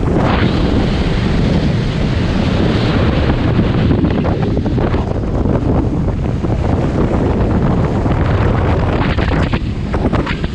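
Wind buffeting the microphone on a speedboat running at high speed, over the rush of water against the hull. The noise is loud and continuous.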